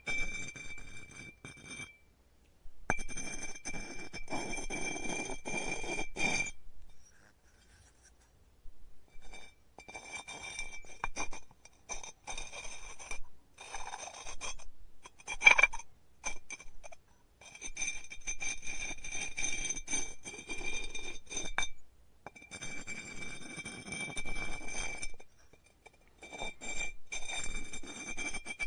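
Pottery studio work sounds coming in separate stretches of a few seconds: clay and tools scraping and rubbing, with light clinks, over a steady high whine. About halfway through comes one sharp, loud clink.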